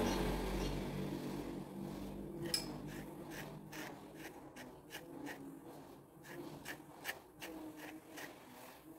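Scissors snipping through the wool-yarn fur of a crocheted toy dog: a quick run of short sharp snips, about two or three a second, starting about two and a half seconds in. Before the snips, soft rubbing and handling of the wool.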